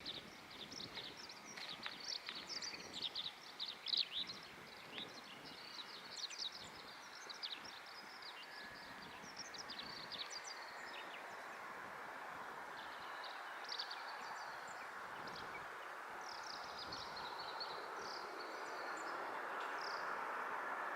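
Small birds chirping and twittering in quick, busy calls throughout. Underneath, a steady rushing of a distant jet airliner grows slowly louder through the second half.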